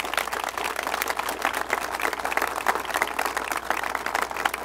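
A crowd of people applauding, many hands clapping at a steady level.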